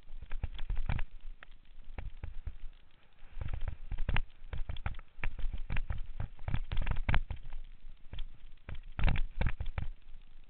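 Downhill mountain bike clattering over rough trail, wooden planks and rock, with a loosely mounted action camera rattling along: a continuous run of irregular knocks and rattles, easing briefly about two seconds in, then coming back in louder clusters.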